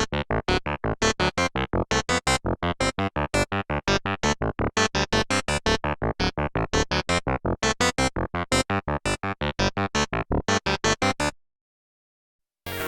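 Sequential OB-6 analog synthesizer playing a sequenced FM patch, with VCO 2 cross-modulating the sound: a fast, even run of short plucked notes, about four or five a second. It is played dry, with no effects, and stops about eleven seconds in.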